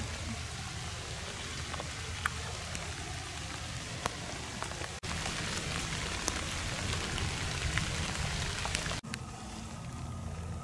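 Steady rain falling, an even hiss with scattered sharp ticks of single drops. The sound cuts out for an instant about five seconds in and again about nine seconds in.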